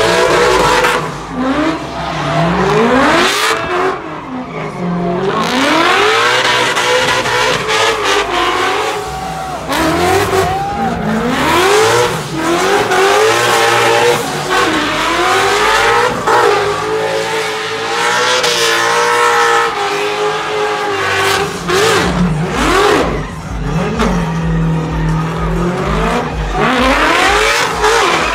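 A car's engine revving hard and over and over during a burnout, its pitch climbing and dropping again and again, with the rear tires spinning and squealing on the pavement.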